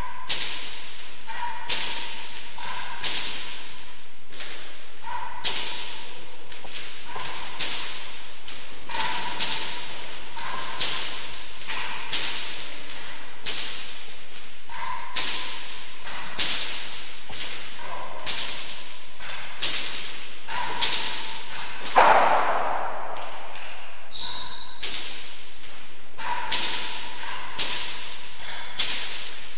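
Rally of a hard ball in an enclosed walled court: a steady run of sharp cracks as racquets strike the ball and it hits the walls and floor, about one or two a second, each with a short ring. One impact about two thirds of the way through is clearly louder.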